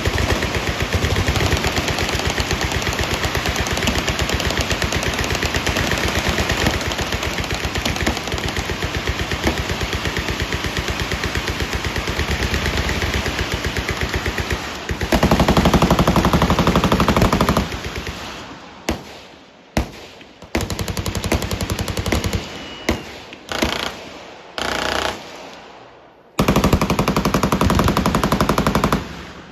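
Fully automatic machine-gun fire: rapid continuous firing for about fifteen seconds, then a loud long burst, several short bursts with pauses between, and a final long burst near the end.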